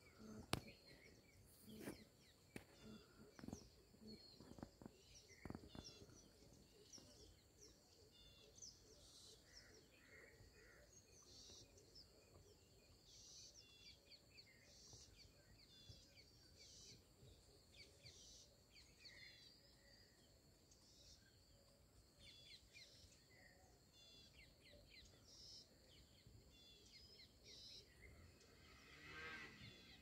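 Faint outdoor ambience with many small birds chirping and twittering throughout. A few sharp clicks come in the first few seconds, the first the loudest, and near the end a louder, lower call bends in pitch.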